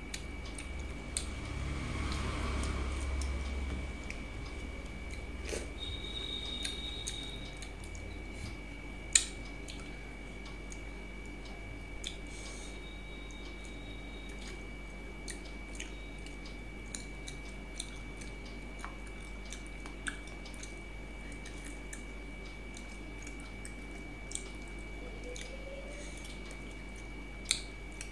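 Someone eating rice and fish curry by hand from a steel plate: fingers mixing and scooping food and chewing, with scattered small clicks of fingers and a ring against the plate, one sharper click about nine seconds in.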